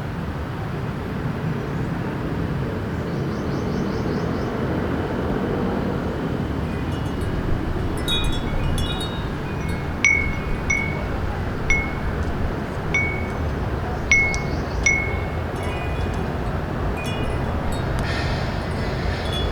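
Small wind chime struck by the breeze: nothing for the first several seconds, then a scattering of light ringing strikes with short decays, thickest and loudest in the middle and thinning toward the end. A steady low city hum runs underneath.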